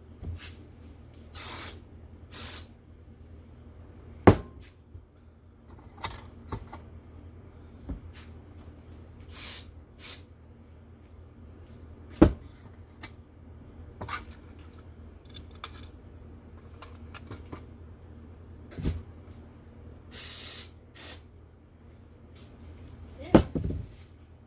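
Compressed air from a blow gun hissing in short bursts, several times, blowing out and drying cleaned carburetor parts. A few sharp knocks come in between, the loudest about four, twelve and twenty-three seconds in.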